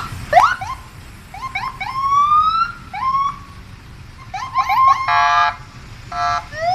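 Electronic police siren sound: a string of quick rising whoops and chirps, a longer rising wail about two seconds in, then two short buzzing horn blasts about five and six seconds in, ending on a rising whoop.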